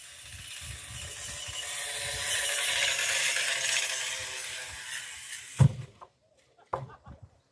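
A pulley trolley carrying logs runs down a long steel skyline cable, hissing and whirring louder as it approaches. It ends in a heavy thud about five and a half seconds in as the load comes to a stop, followed by a few clanking knocks.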